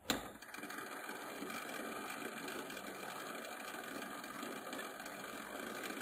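Washing machine tub draining after its drain valve is opened: a steady, even rushing of water running into the drain hose.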